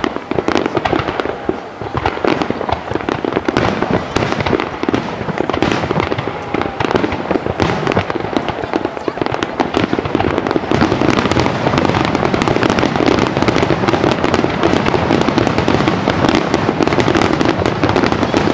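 Finale barrage of aerial firework shells bursting in quick succession: dense overlapping bangs and crackling, growing louder and denser about eleven seconds in.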